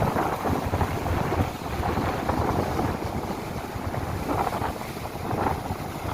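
Winter sea waves breaking and washing on the beach, with strong wind buffeting the microphone in gusts.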